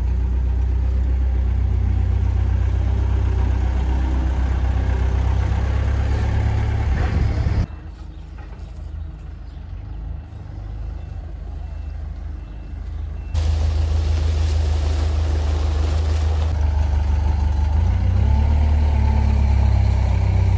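Diesel engine of a rough-terrain forklift running with a loud, steady low drone, much fainter for about six seconds in the middle. Near the end the engine note briefly rises and falls as the forklift sets its load down.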